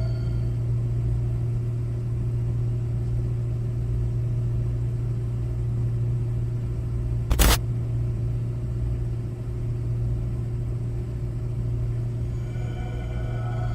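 A steady low hum, with a single sharp click about seven seconds in.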